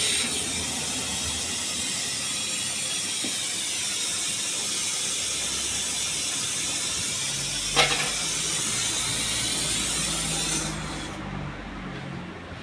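Gas brazing torch flame burning with a steady hiss while heating aluminium for a rod joint. A single sharp click about eight seconds in, and the hiss fades near the end.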